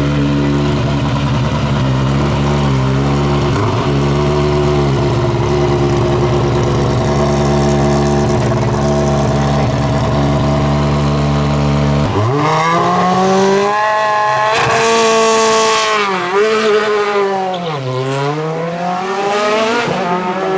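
Race car engine held at steady high revs on launch control for about twelve seconds, then the car launches. The revs climb, and two upshifts drop the pitch before it climbs again as the car accelerates away.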